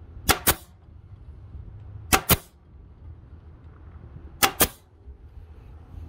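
Wen staple gun firing three times, about two seconds apart, each shot a quick double crack.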